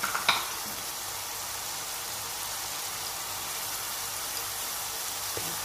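Grated onions frying in hot refined oil in a non-stick kadai, a steady, even sizzle. A short knock sounds about a quarter second in.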